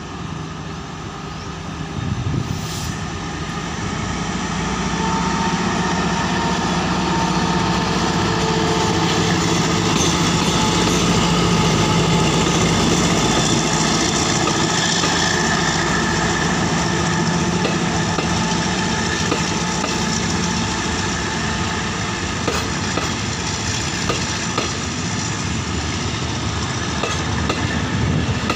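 Diesel-electric passenger locomotive, Alsthom 4107 re-engined with a Caterpillar diesel, approaching and passing close by with its engine running. The engine grows louder as it comes and is loudest as the locomotive passes about halfway through. Then the passenger coaches roll past with a steady rumble and wheels clicking over rail joints near the end.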